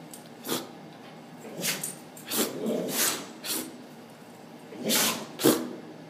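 A dog having a sneezing fit: about seven short, sharp sneezes at uneven intervals, some in quick pairs about half a second apart.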